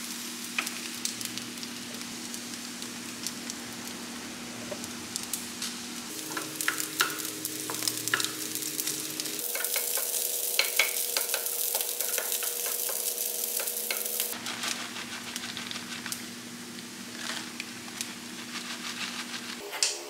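Fried rice sizzling steadily in sesame oil in a nonstick frying pan while a wooden spoon stirs and scrapes through it with many light clicks. The sizzle is loudest for about five seconds in the middle.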